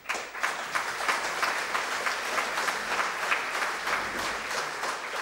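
Audience applauding: many hands clapping at once in a steady, dense patter.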